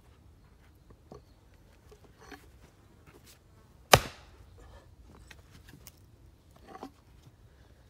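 An axe blow splitting a black locust firewood round: one sharp, loud crack with a short ring about four seconds in, with a few faint knocks before and after it.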